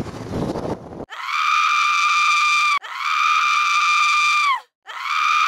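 Wind buffeting the microphone for about a second, then a high-pitched scream repeated three times, each held steady for about a second and a half and dropping in pitch as it ends.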